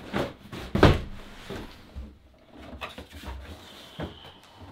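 Large cardboard box being handled: the printed outer box slid up off a white inner box, with one heavy thud about a second in and a few lighter knocks and scrapes after it.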